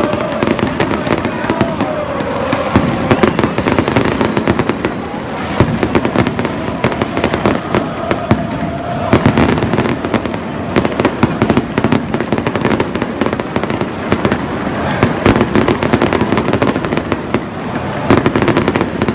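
Aerial fireworks crackling in rapid volleys of sharp pops, densest about six, nine and eighteen seconds in, over the voices of a large stadium crowd.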